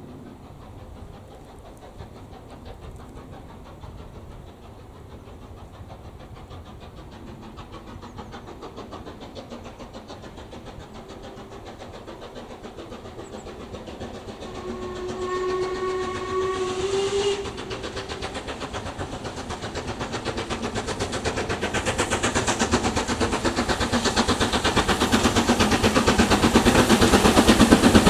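Two-cylinder LMS Black Five 4-6-0 steam locomotive 45305 working a goods train towards the listener, its exhaust beats steadily growing louder. About halfway through it sounds its whistle once, a single tone held for about three seconds.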